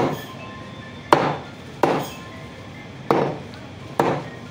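Heavy meat cleaver chopping through whole raw chicken onto a wooden chopping block: a hard thwack roughly every second, five in all, each dying away quickly.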